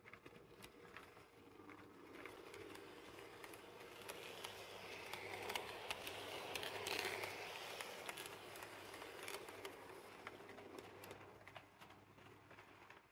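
Tenshodo HO-scale Kuru 144 and Kumoru 145 two-car model electric train, motorized with a Power Truck, running on the track: a faint rumble of wheels and motor with many small clicks over rail joints and turnouts. It grows louder toward the middle and then fades away.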